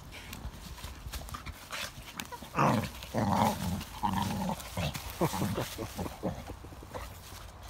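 Pocket American Bully dog growling in a run of short bursts as it tugs at a fallen branch, over the crackle and rustle of dry leaves and twigs.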